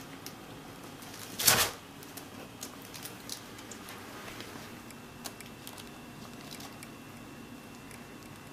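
A collapsible mesh storage cube folds flat onto carpet with a short rustling crash about one and a half seconds in. Scattered light clicks and rustles follow as a kitten scrabbles on the mesh fabric and its frame.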